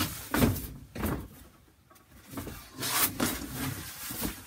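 Laminated solar-cooker reflector panel being folded by hand along its score line: a couple of sharp snaps in the first second, then rustling of the sheet as it is pressed and handled about three seconds in, and a knock near the end.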